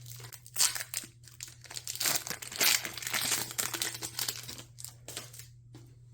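A Pokémon TCG booster pack's foil wrapper being crinkled and torn open by hand. The crackling is densest in the middle and thins out near the end.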